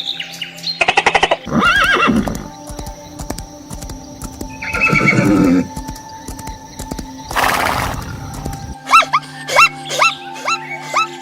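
A horse neighing several times over steady background music. Near the end comes a quick run of short, repeated chirp-like calls.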